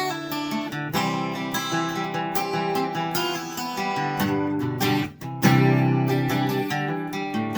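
Ibanez EW20ZWE grand auditorium acoustic guitar played solo: picked and strummed chords ringing out, with a brief break about five seconds in before a louder strummed chord.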